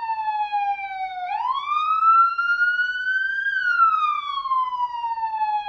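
Police siren wailing: a tone that falls slowly, sweeps quickly back up about a second in, climbs slowly to its top, then falls slowly again toward the end.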